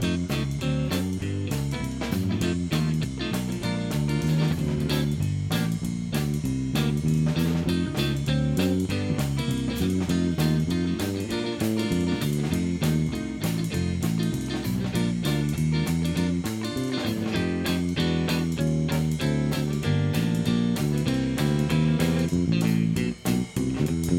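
Background music: a guitar-led tune with bass and a steady beat, dropping out briefly near the end.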